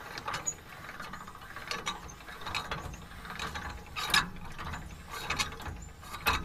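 Dump trailer's tongue jack being cranked down, its gears clicking and knocking irregularly as the tongue's weight comes onto the tongue weight scale.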